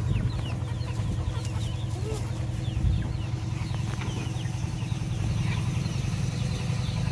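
Chicks peeping: many short, high, falling chirps in quick succession, over a steady low hum.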